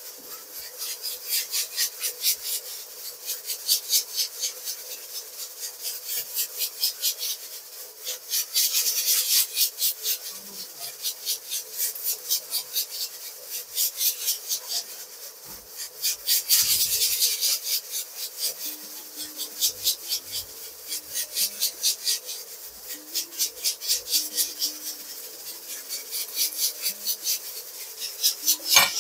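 Onion, garlic and ginger masala paste sizzling as it fries in ghee in a large pot, a steady crackling hiss that swells in quick pulses a few times a second.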